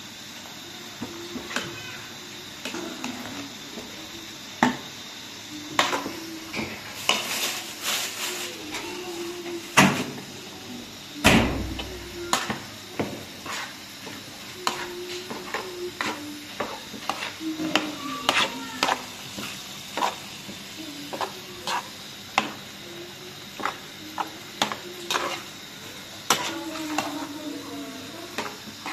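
Pots, dishes and utensils clinking and knocking at irregular intervals over a steady low hiss, with one heavier thud about eleven seconds in.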